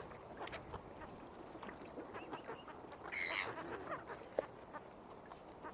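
Waterfowl calling, with one louder harsh call about three seconds in, over scattered soft ticks.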